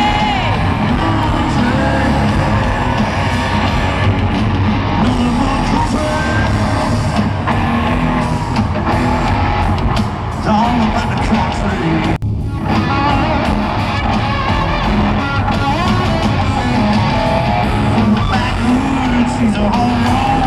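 Live country-rock band with a male lead singer and electric guitars, loud as heard from close seats in the audience, with voices yelling along. There is a brief dropout about twelve seconds in.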